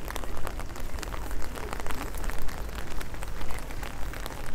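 Steady rain falling, heard as an even hiss dotted with many small drop ticks, over a low rumble.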